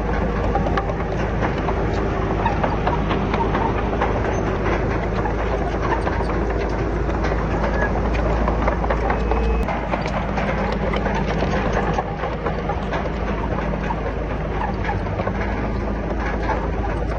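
Crawler bulldozer working, its diesel engine running steadily under a heavy low rumble, with constant clanking and knocking from the steel tracks and the rock being pushed. The engine rumble eases slightly about ten seconds in.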